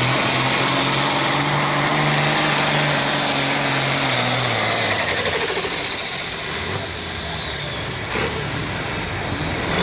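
John Deere diesel pulling tractor running hard at full throttle under the load of the sled. About five seconds in it throttles down at the end of the pull, and a high turbocharger whistle winds down over the next few seconds. A single knock comes about eight seconds in.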